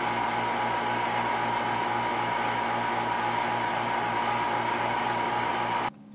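Electric vacuum pump running steadily with a hum and a whine, pulling the air out of a reaction flask before it is filled with hydrogen. The sound cuts off abruptly near the end.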